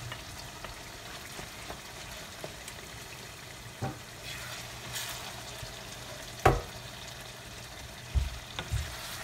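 Raw chicken mince just added to hot oil with onions and tomatoes, sizzling in a frying pan as it is stirred with a wooden spoon. A few sharp knocks of the spoon against the pan, the loudest about two-thirds of the way through and two more close together near the end.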